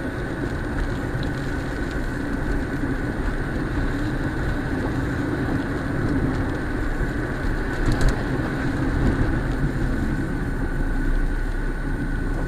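Steady engine and tyre noise of a vehicle driving on a wet road, heard from inside the cabin, with a brief knock about eight seconds in.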